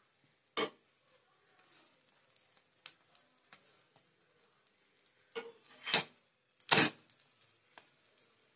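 Spatula knocking and scraping on a non-stick griddle (tawa) as an aloo paratha is pressed and flipped: a few sharp knocks, the loudest two about a second apart in the second half, over a faint sizzle.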